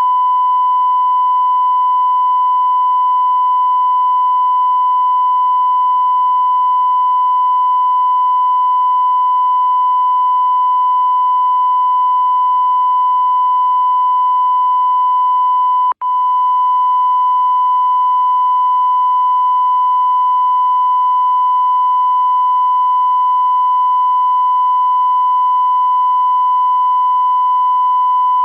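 Continuous electronic beep tone of the kind used as a sound effect, held at one steady pitch. It cuts out for an instant a little over halfway through, then resumes unchanged.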